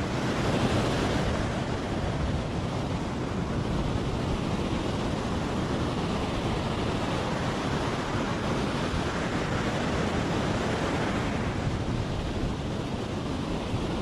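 Ocean surf breaking and washing up a sandy beach: a steady hiss of water that swells and eases as each wave comes in.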